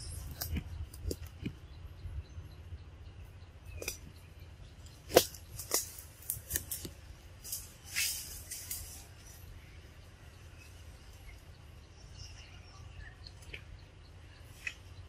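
A macaque biting and chewing ripe mango: a run of sharp, wet smacks and clicks, thickest between about five and nine seconds in, over a low steady hum.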